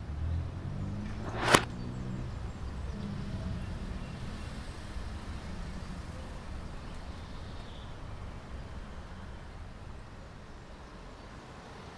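Low rumble of a passing vehicle, fading away over the first few seconds. About a second and a half in, one short, sharp swish rises quickly and cuts off, the loudest sound here.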